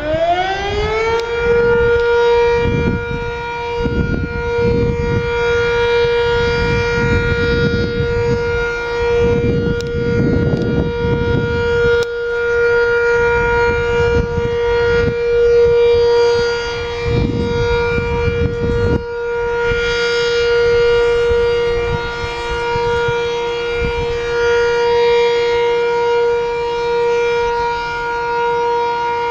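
Sentry 3V8-H outdoor warning siren winding up to full pitch about a second in, then holding one steady tone for its weekly test, with an irregular low rumble underneath.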